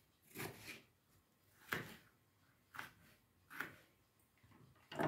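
Kitchen knife chopping cucumber on a plastic cutting board: about four separate strokes, roughly a second apart, each a short thud of the blade through the cucumber onto the board.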